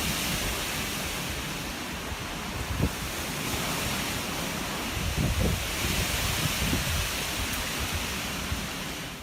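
Steady outdoor rushing noise of wind and water, with low gusts buffeting the microphone; it cuts off suddenly at the end.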